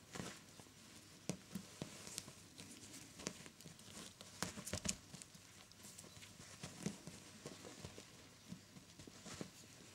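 Kittens playing with a feather wand toy on a bedspread: faint, irregular taps, soft knocks and rustles as they pounce on and bat at the toy, with a quick flurry of taps about halfway through.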